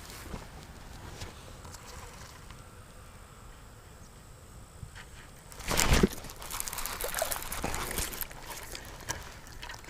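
Quiet outdoor background with a faint, steady high whine, then a sudden loud crash of noise about six seconds in, followed by a few seconds of rough splashing and rustling.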